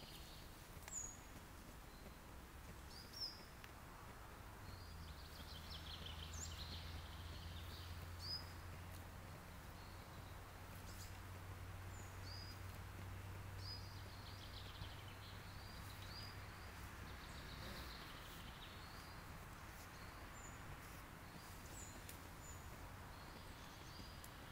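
Faint woodland birdsong: short high chirps and calls from several birds, scattered throughout. A low steady hum joins from about five seconds in and fades out about thirteen seconds later.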